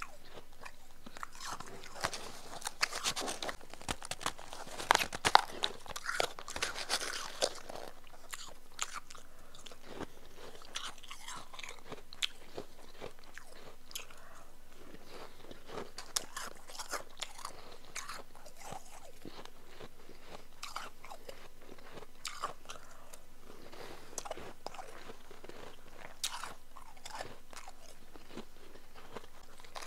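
A person biting and chewing powdery, chunky ice, with crisp crunches. The crunching is dense for the first several seconds, then comes as sparser single bites and crunches.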